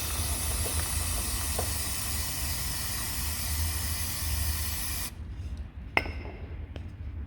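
Aerosol can of Muc-Off all-weather chain lube spraying onto a motorcycle chain in one long steady hiss that cuts off suddenly about five seconds in. A sharp click follows about a second later.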